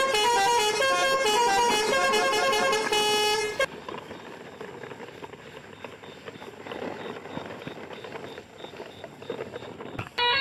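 A bright melody of horn-like electronic notes plays for about three and a half seconds and then cuts off suddenly. A much quieter rustling follows: plastic toy trucks being pulled over grass.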